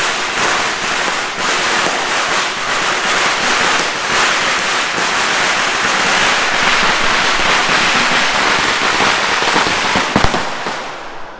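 A long string of firecrackers going off in a rapid, unbroken crackle of bangs, dying away near the end.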